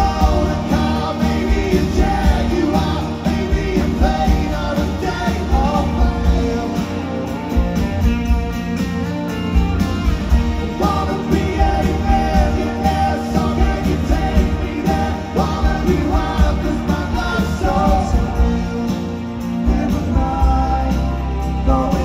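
Rock band playing live, heard from the crowd: a man singing lead over strummed acoustic guitar, electric guitars, keyboards and drums.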